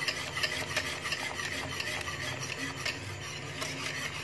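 Wire whisk beating custard in a steel pot: a steady swishing and scraping, dotted with many small clicks of the wires against the metal.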